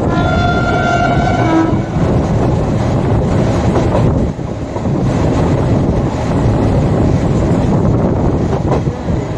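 Horn of an Indian Railways WAP7 electric locomotive sounding once for just under two seconds, dropping to a lower note at the very end. After it comes the steady running noise of the express train's coaches on the track.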